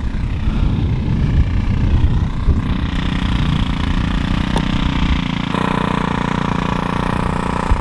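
Walk-behind rototiller's small gasoline engine running steadily as it tills the garden soil.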